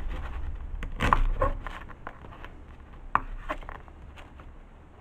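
A knife cutting baguette slices into cubes on a wooden chopping board: crusty bread crackling and scraping under the blade, with taps of the knife on the board. Busiest in the first two seconds, then a few scattered taps.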